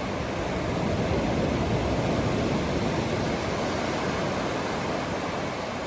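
Steady rushing noise with no distinct events, even in level throughout.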